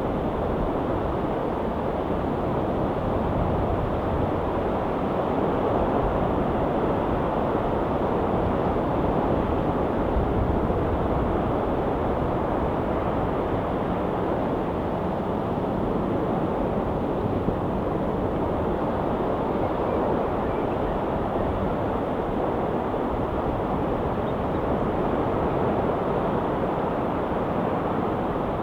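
Ocean surf washing continuously, a steady low noise that swells slightly and falls back now and then.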